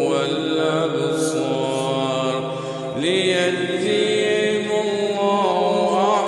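A man reciting the Quran in melodic tajweed style, holding long ornamented notes. One phrase ends and a new one begins with a rising note about three seconds in.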